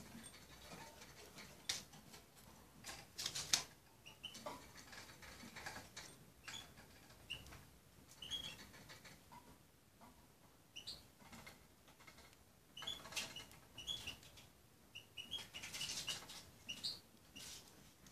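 A small finch pecking at berries in a glass bowl: irregular light clicks and taps of its beak on the berries and the glass, coming in quicker clusters now and then, with short high chirps in between.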